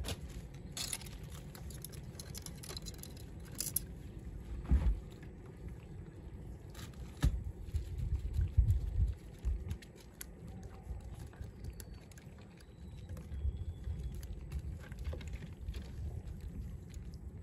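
A low steady rumble with scattered knocks and rustles: crabs being picked by hand out of a stow-net catch tangled with plastic litter on a wooden boat, the loudest knocks about five, seven and eight seconds in.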